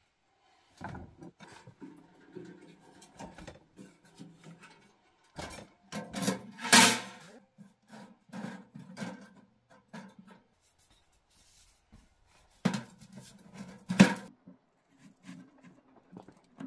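Handling clatter as bricks and a small sheet-metal tent wood stove are set down and its stove pipe is fitted: irregular knocks and scrapes, with a loud knock about 7 seconds in and another about 14 seconds in.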